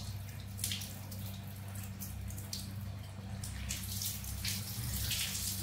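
Water poured from a plastic scoop over a baby monkey's head, splashing and dripping in short repeated bursts, over a steady low hum.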